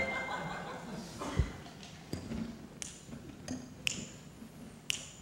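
A quiet stretch broken by one dull thump about a second and a half in, then about five short, sharp clicks and taps as performers move about on a stage.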